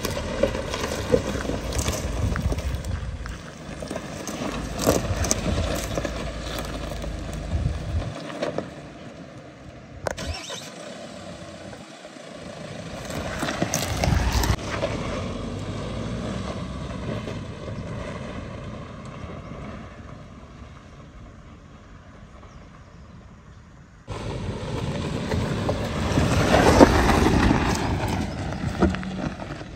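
Mahindra Thar 4x4 running as it is driven, in several short clips cut together. The sound stops and restarts abruptly about eight, ten and twenty-four seconds in, and is loudest near the end.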